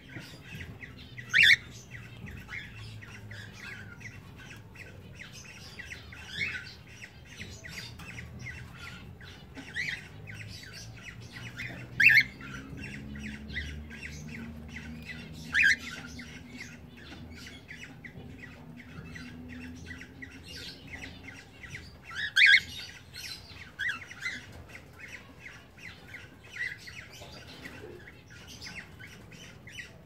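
Cockatiels squawking: a handful of loud, sharp calls over a steady chatter of many small chirps.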